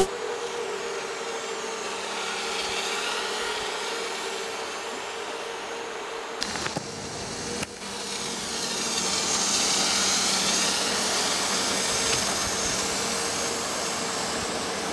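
Small FPV racing quadcopter's electric motors and propellers whining as it flies low over the water, swelling as it passes the microphone, loudest in the second half. There are two brief clicks a little past the middle.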